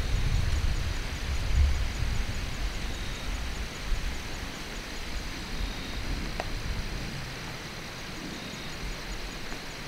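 Woodland outdoor ambience: wind rumbling on the microphone, strongest in the first couple of seconds and then easing, over a faint steady high hiss, with one sharp click about six seconds in.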